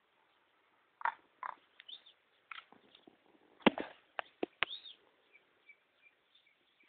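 Sparse short bird chirps amid scattered sharp clicks and knocks, with the loudest clicks bunched together about midway through.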